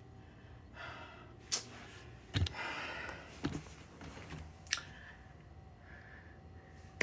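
Quiet room with a few scattered soft clicks and knocks, the loudest a little past two seconds in.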